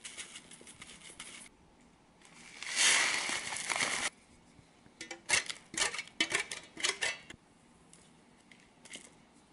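Dry granules poured into a plastic tub: a faint hiss of coffee grounds at first, then a louder rushing pour of cat litter lasting about a second and a half, followed by a run of sharp clicks and knocks.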